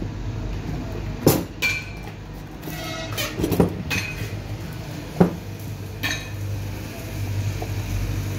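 Metal hand tools clinking and knocking against each other and the wooden workbench as they are picked up and put down: about six separate clinks, the loudest about five seconds in, over a steady low hum.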